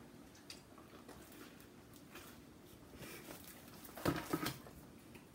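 Quiet chewing and mouth sounds from eating a fried soft-shell crab sandwich, with scattered faint clicks and a brief louder pair of sounds about four seconds in.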